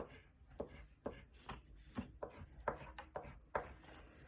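Silver drawing colour scratched onto paper in quick, short strokes, about ten irregular taps and scrapes, as firework lines are drawn.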